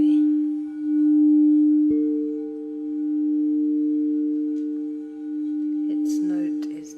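Singing bowl ringing a steady low tone that swells and fades in slow waves. About two seconds in, a second, higher-pitched bowl is struck and rings along with it.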